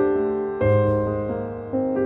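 Slow background piano music: held chords that fade, with a new chord struck about half a second in and another near the end.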